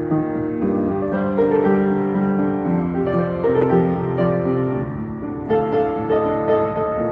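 Solo piano playing a slow piece, its notes held and overlapping, with a new chord struck about five and a half seconds in.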